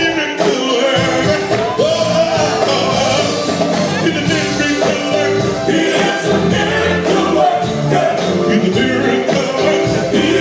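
Live gospel music: a male lead singer on a microphone with a group of male backing singers, amplified through stage speakers, with a low bass part coming in about a second in.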